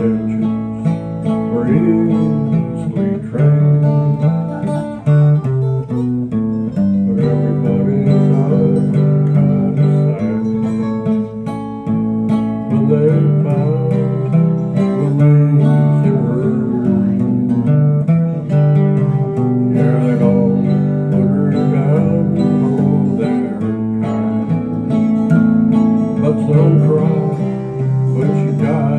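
Two acoustic guitars playing a country song together, with chords strummed on one and notes picked on the other.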